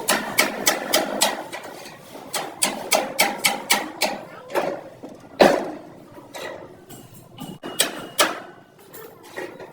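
Hammer blows on car body sheet metal in quick runs of about three or four strikes a second, with one heavier strike about halfway through: panel-beating (denting) work on an accident-damaged body.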